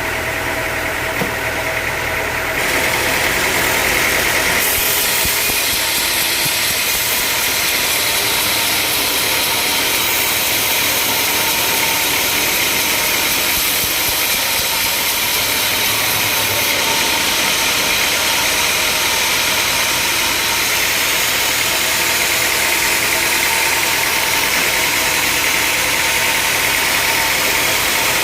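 Sawmill machinery running steadily. It gets louder about two and a half seconds in, and a few seconds later a bright hiss is added.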